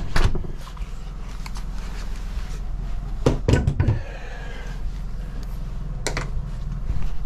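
A few sharp knocks and bumps as groceries and gear are handled and put away in a small room, over a steady low hum.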